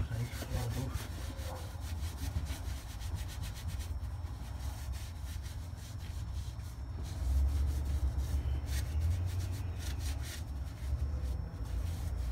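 An alcohol wipe being scrubbed around the inside of a BMW E46 brake caliper in quick, irregular rubbing strokes of cloth on metal, cleaning out old grime before the new seals go in. A low rumble runs underneath and grows louder about seven seconds in.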